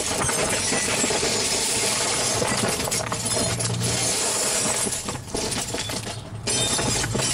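Broken glass from a flat-screen TV panel crunching, shattering and clinking down into a plastic trash can as the panel is broken up, a dense crackle that drops off briefly twice, about five and six and a half seconds in.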